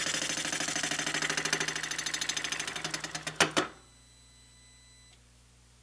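Milling machine spindle turning a Criterion boring head, its single-point cutter boring out the port of a cast aluminium Saab intake manifold, with a steady rhythmic pulsing. About three and a half seconds in come two sharp clacks, then the cutting stops and only a faint machine hum remains.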